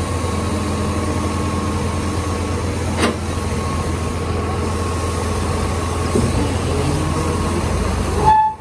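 A steady engine-like drone, like a heavy vehicle idling, with a single sharp click about three seconds in. The drone cuts off abruptly near the end.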